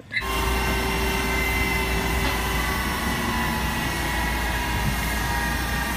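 Aircraft jet turbine running on an airport apron: a steady high whine over a low rumble.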